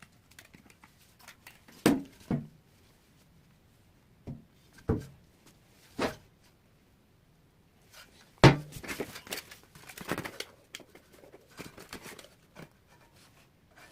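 Hands-on repair handling sounds: a series of sharp knocks and taps of objects set down on a hard surface, the loudest about eight and a half seconds in, followed by a few seconds of scraping and rustling.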